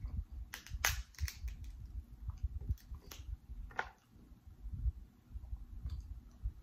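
Close-miked eating of king crab legs: chewing with sharp wet clicks and crackles, bunched in the first second and a half and again near four seconds, as the meat is pulled from the pre-cracked shell.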